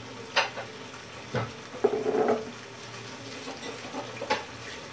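Chicken rezala in its thick yogurt-and-cashew gravy sizzling steadily in a nonstick frying pan, with a few sharp clicks of a spoon against the pan.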